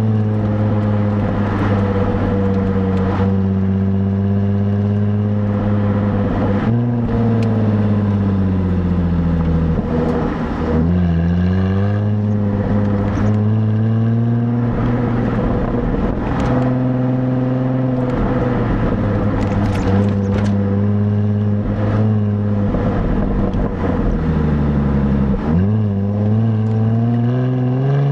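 Stock exhaust of a 2017 Jaguar F-Type, heard from the rear plate, droning at cruise with the engine note dipping and rising again several times as it shifts and picks up speed, then climbing steadily under acceleration near the end.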